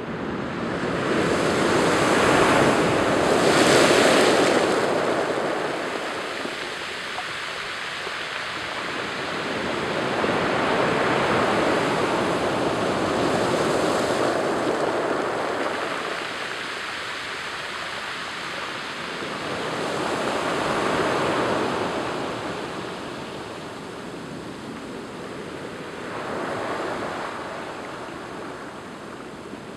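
Surf on a stony beach: waves break and wash up over the rocks in slow swells, the loudest about two to four seconds in, with smaller surges following every several seconds.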